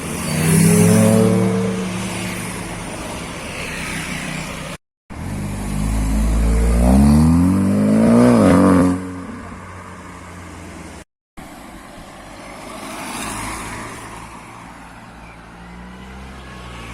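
Tuned cars' engines revving and accelerating, in three short clips cut together. In the middle clip an engine's pitch climbs steadily for about three seconds, then drops away.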